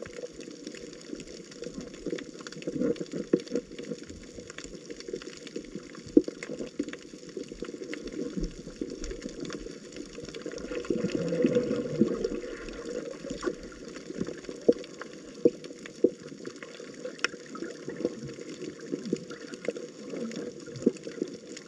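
Water moving and splashing, with many sharp clicks and knocks, swelling to its loudest about eleven to thirteen seconds in.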